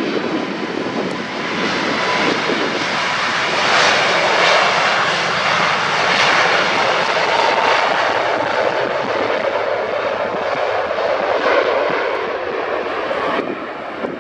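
Airbus A350-1000's twin Rolls-Royce Trent XWB-97 turbofans at takeoff thrust as the airliner rolls past on its takeoff run. A loud, steady jet noise that swells over the first few seconds, is loudest around four to seven seconds in, and eases slightly near the end.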